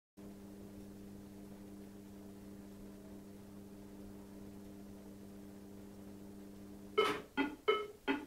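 Triomint Super slot machine powered up, giving a steady electrical hum; about seven seconds in it starts a quick run of ringing chime tones, about three a second, four in all.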